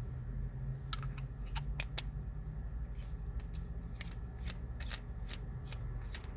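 Light clicks and ticks, scattered at first, then a fairly regular run of about two a second from around halfway, over a low steady hum.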